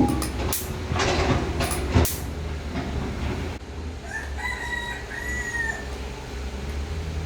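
A rooster crowing once, about four seconds in, over a steady low hum. Before it come a few sharp knocks and clatter near the start.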